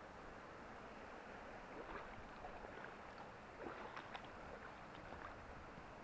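Faint trickle and lapping of a shallow creek running over flat rock, with a few scattered light clicks and taps.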